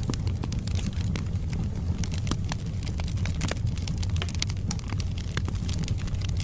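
Wood logs burning in a fireplace: a steady low rumble of the fire with frequent sharp crackles and pops from the burning wood.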